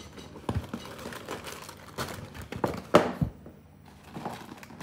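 Paperboard food box being opened by hand, its flaps bent back with irregular crinkling and rustling and small knocks, the loudest crackle about three seconds in.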